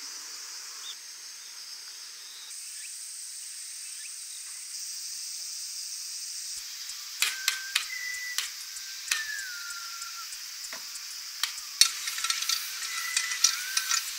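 A steady high hiss of background ambience. About halfway in, a run of sharp clicks and knocks from camping gear being handled begins, with a few short high squeaks.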